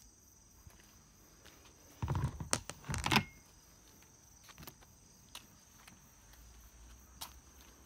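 A loud burst of rustling and handling noise close to the microphone about two seconds in, lasting just over a second. It sits over a steady high insect trill, likely crickets, with a few light clicks scattered through.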